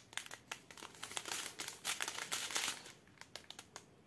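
Small clear plastic bags of diamond-painting resin drills crinkling as they are unrolled and handled: a quick run of fine crackles that thins out near the end.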